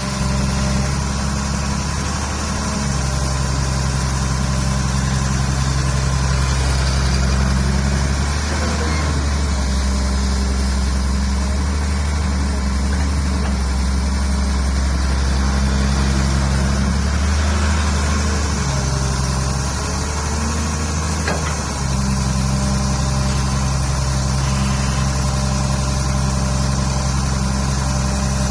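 Kobelco SK07 hydraulic excavator's diesel engine running steadily while digging, its note shifting and unsettled from about 8 to 22 seconds in as the machine works, then steady again.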